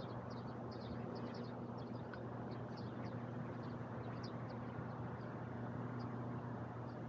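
Small birds chirping again and again, short high notes, over a steady low machine hum and distant city traffic noise.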